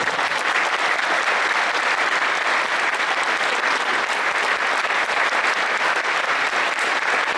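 Large audience applauding, steady dense clapping.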